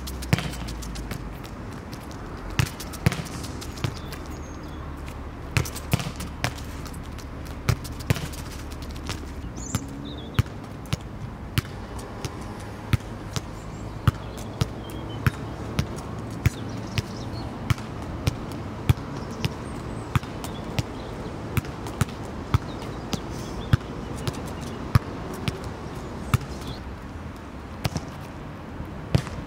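Soccer ball being kicked against a high wall again and again, each pass and rebound a sharp smack. The strikes come in a steady rhythm, about one every half second to a second.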